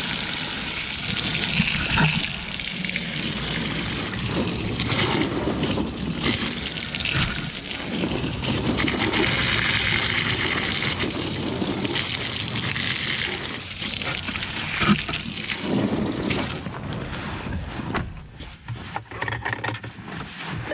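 Water splashing and running over a boat's deck hatch, a leak test of its freshly installed gasket; the water thins out near the end.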